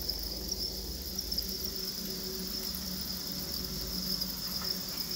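A dense crowd of farmed crickets chirping together: a steady, high-pitched trill.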